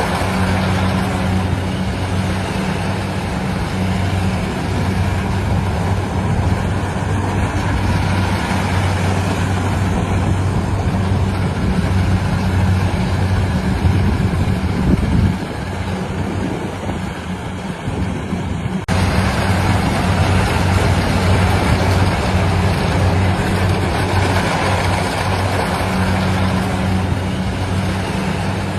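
A rice harvesting machine's engine running steadily with a low hum. A little past the middle the hum drops out for a few seconds, then comes back abruptly.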